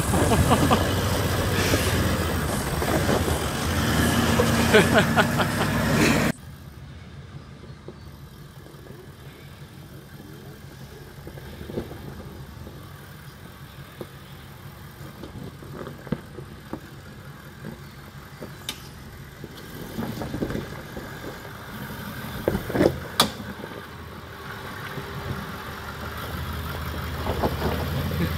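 Toyota LandCruiser VDJ76's 4.5-litre turbo-diesel V8 working as the truck crawls over deep ruts, loud and close. After a sudden cut about six seconds in, it is heard faint and distant, growing louder as it approaches, with a few sharp knocks along the way.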